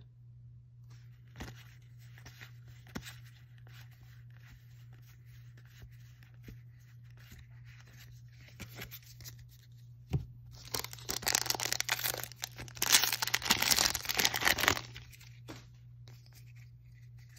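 Light handling of trading cards, then, about ten seconds in, a Magic: The Gathering booster pack's wrapper torn open and crinkled for about four seconds.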